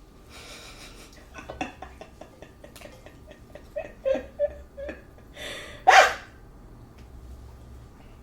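A woman's short wordless vocal sounds: a few brief hums or whimpers about four seconds in, then a louder breathy burst like a laugh or exhale about six seconds in, amid light clicks.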